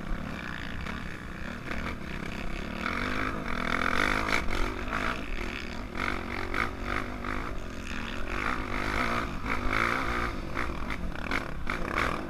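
Dirt bike engine, heard from the rider's helmet, running hard under throttle and revving up and down as it climbs a steep grass-and-dirt trail, the engine note swelling and easing several times.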